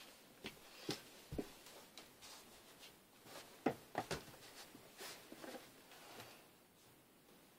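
Faint rustling of hanging clothes and scattered soft knocks and clicks as a person squeezes into a clothes-filled wardrobe, the strongest knocks a little under four seconds in.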